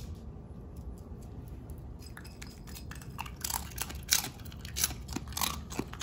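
A bichon frise chewing dry kibble from a ceramic bowl: a quick, irregular run of crisp crunches that starts about two seconds in and grows busier toward the end.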